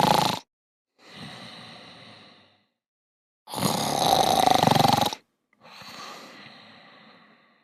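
Exaggerated snoring voiced for sleeping robots: a loud snore followed by a quieter, breathier one, twice over.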